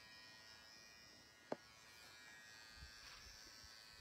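Electric hair clippers buzzing faintly and steadily, with one sharp click about a second and a half in.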